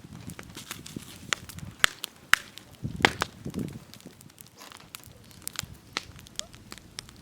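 Wood fire crackling, with sharp irregular pops and a couple of duller low thumps.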